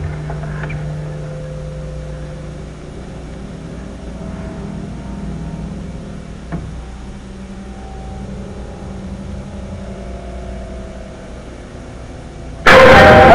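Horror-film suspense score: a low steady drone with faint held tones that swell and fade, then a sudden very loud stinger hit about a second before the end, marking a jump scare.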